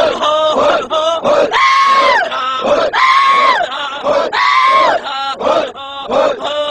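A man shouting in Arabic: quick shouted words, then three long drawn-out cries in the middle, then quick words again.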